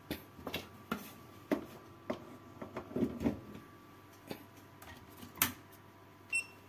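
Light, irregular clicks and taps of small tools and parts being handled on an electronics workbench while getting ready to solder, with one short electronic beep near the end.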